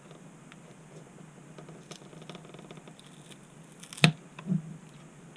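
Pry tool working at the adhesive under a Samsung Galaxy S8's back glass: faint scraping and light ticking, then a sharp knock and a second, softer one about half a second later, a bit past the middle.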